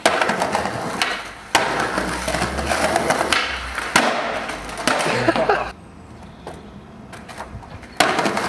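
Skateboard wheels rolling on rough concrete, broken by several sharp clacks of the board hitting the ground. It drops quieter for a couple of seconds after the middle, then another loud clack comes near the end.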